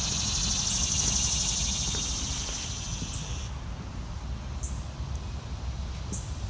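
High, steady insect buzzing that cuts off abruptly about three and a half seconds in, over a low rumble.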